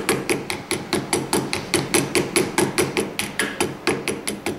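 Ball peen hammer tapping rapidly and evenly, about five or six taps a second, on gasket paper laid over a metal intake manifold flange held in a vise. The taps cut the paper along the flange edge to form a new carburetor gasket.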